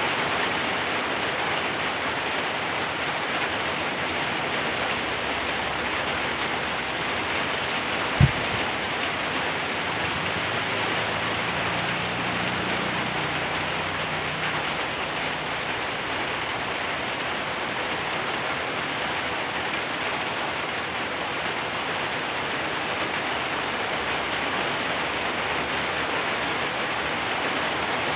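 Steady rain falling. About eight seconds in there is a single sudden low thump, followed a few seconds later by a faint low rumble.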